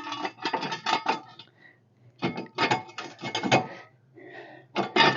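Three bursts of rapid metallic clinking and clattering, with short pauses between: metal parts being handled while jacking up a car.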